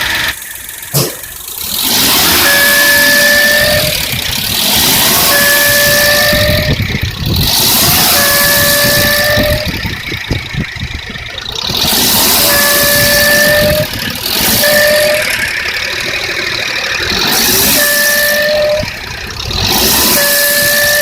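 Suzuki Jimny JA11's F6A three-cylinder engine running with a whistling noise from an emission control hose: a steady whistle at two pitches together sounds for about a second at a time, about seven times, over a loud hissing running noise.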